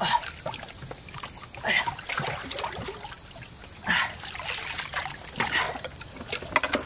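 Hands splashing and sloshing in shallow muddy water while groping for fish, in several irregular bursts with water trickling in between.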